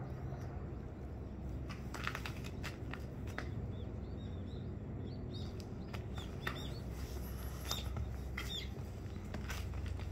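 Outdoor ambience with a steady low rumble, scattered sharp clicks, and several short high chirps of small birds in the second half.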